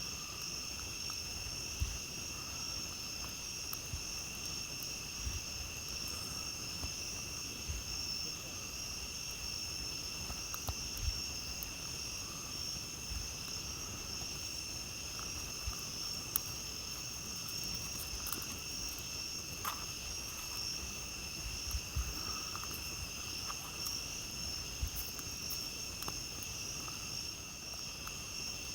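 Crickets and other night insects chirping steadily at several high pitches, with scattered small crackles and pops from a campfire.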